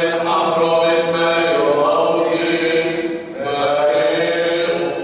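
Syriac liturgical chant sung in long held notes, breaking off briefly about three seconds in and then resuming. A high steady ringing joins about three and a half seconds in.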